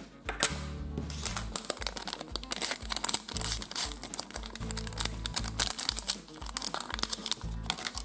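Small printed packet being torn open and crinkled by hand: a rapid, irregular run of crackles, over background music.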